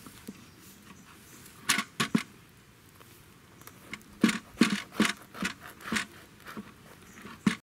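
Knife sawing through the hard seeded crust of a large cob loaf: a few sharp crunches about two seconds in, then a quicker run of crackling crunches from about four seconds on.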